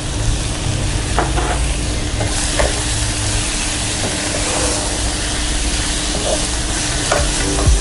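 Stir-fry of baby lettuce, cherry tomatoes and beef sizzling in a hot pan as a wooden spatula turns it, with a few light knocks against the pan; the sizzle grows brighter about two seconds in.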